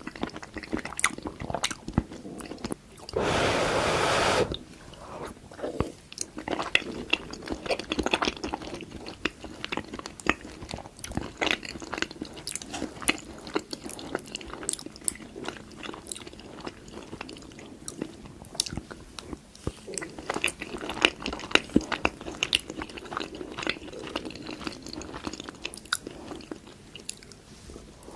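Close-up chewing of macaroni and cheese, with many small wet mouth clicks and crunches. A louder burst of hiss-like noise lasts about a second and a half, starting about three seconds in.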